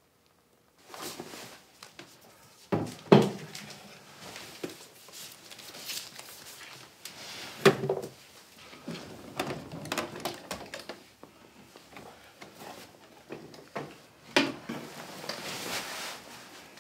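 Bedclothes rustling and scattered knocks and bumps of people moving hurriedly about a bedroom and handling things at a nightstand. The loudest knocks fall about three seconds in, near eight seconds and near fourteen seconds.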